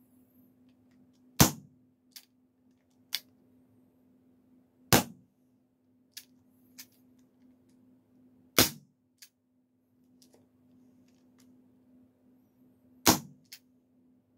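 Suppressed Dan Wesson 715 CO2 airsoft revolver fired four times, a few seconds apart, each shot a sharp crack with a short tail, with lighter mechanical clicks between shots.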